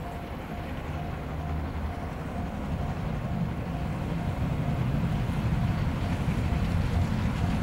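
Train running with a low rumble that grows steadily louder.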